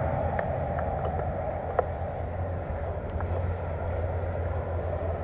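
Steady wind rumble on the microphone, with a few faint sharp cracks of distant airsoft gunfire scattered through it.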